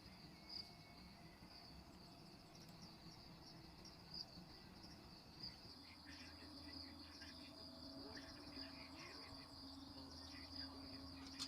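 Faint, steady chirring of crickets, a high-pitched trill, in an otherwise quiet night. About halfway through, soft scattered ticks and a low hum join in.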